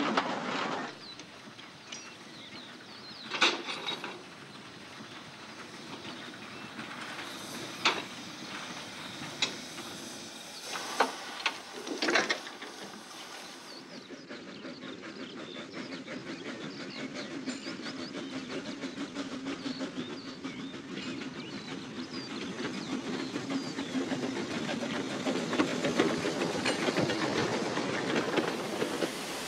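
Narrow-gauge steam train: several sharp clanks in the first half, then a steady running rumble with fast wheel clicks that grows louder toward the end.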